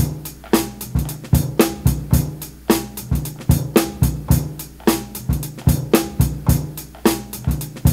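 A sampled drum beat of kick and snare hits played back clean, the unprocessed version before any SP-303 lo-fi or vinyl-sim compression is applied.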